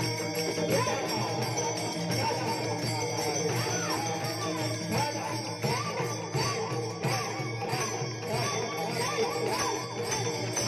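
Warkari bhajan music: small hand cymbals (taal) jingling continuously over a steady low drone, with voices singing wavering melodic lines, clearest in the second half.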